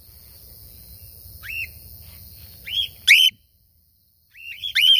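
Cockatiels giving whistled contact calls: short chirps that sweep upward, coming in bunches about a second and a half, three and four and a half seconds in. A low rumble sits under the first three seconds.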